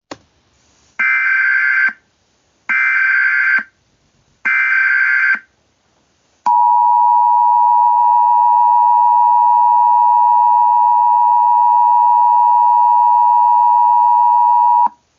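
Emergency Alert System SAME header: three short bursts of warbling data tones, each about a second long, followed by the two-tone EAS attention signal sounding steadily for about eight seconds and cutting off, announcing an incoming emergency alert message.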